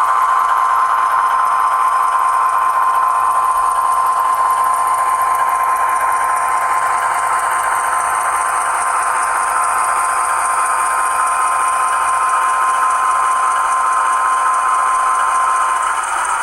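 Model diesel locomotive's sound decoder playing a steady diesel engine sound through a tiny speaker: thin, with almost no bass, and a constant whine running through it. It dips slightly near the end.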